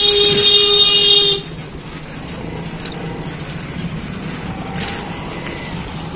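A vehicle horn held in one loud steady honk that cuts off about a second and a half in, followed by the steady hum of street traffic.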